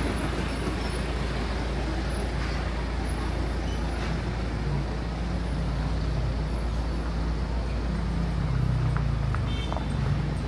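Low rumble of a motor vehicle engine running amid street traffic noise, its note swelling a little in the middle and again near the end.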